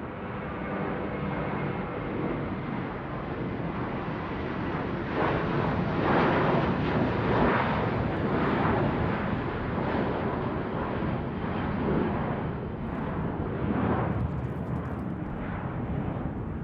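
Fixed-wing airplane flying overhead: a steady jet rumble that swells about five seconds in, stays loud for several seconds, then eases a little.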